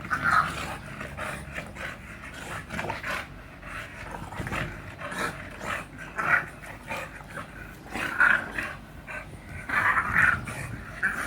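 English bulldog breathing hard, with loud breathy puffs coming irregularly about once a second.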